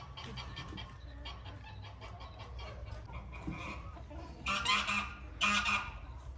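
Flock of hens and roosters clucking continuously, with two loud calls of about half a second each near the end.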